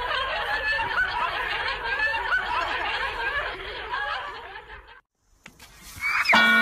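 Several people laughing and snickering together, overlapping, then fading out about five seconds in. Music starts just before the end.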